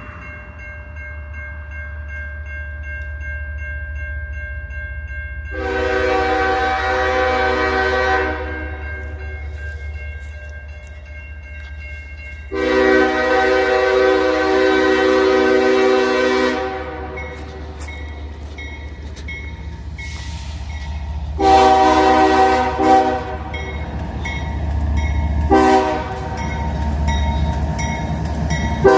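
CSX diesel locomotive's multi-tone air horn sounding the grade-crossing signal: two long blasts, a short one, then a long one that is still going at the end, over the steady low rumble of the locomotive.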